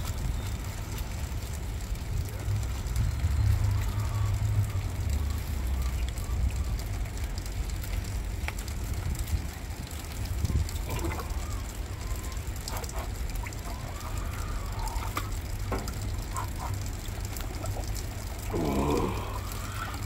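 Wind buffeting the microphone with a steady low rumble, while water sloshes in a galvanized stock tank as a man lowers himself into the ice-cold plunge. A brief vocal sound from him comes near the end.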